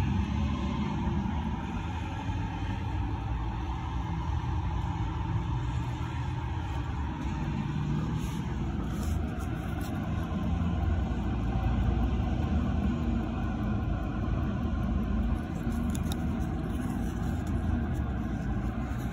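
A steady low rumble with a few faint clicks about halfway through and again near the end.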